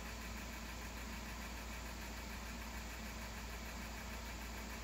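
Honda Grom's small single-cylinder engine idling steadily.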